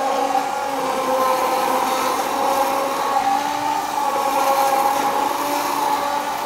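Handheld immersion blender running steadily, its motor whining at a constant pitch as it blends a thin milk-and-flour mixture in a plastic cup.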